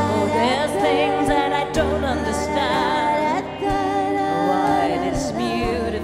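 A woman singing a slow melody with wavering, held notes over sustained keyboard chords and low bass notes.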